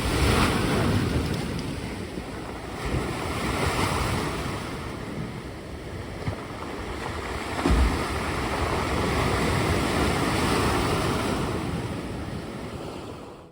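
Mediterranean surf: waves breaking and washing up the beach, rising and falling in swells. Wind buffets the microphone, with a low thump about eight seconds in.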